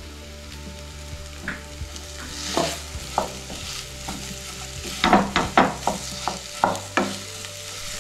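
A spatula stirring and scraping mashed potato into spiced onions frying in oil in a pan, over a light steady sizzle. Sharp scrapes and knocks of the spatula against the pan start about two and a half seconds in and come quickest about five seconds in.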